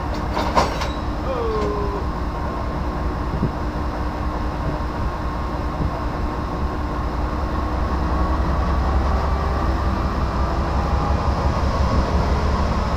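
Amtrak GE P42 Genesis diesel locomotive idling with a steady low rumble, growing a little louder in the second half. There is a single sharp metallic clank about half a second in.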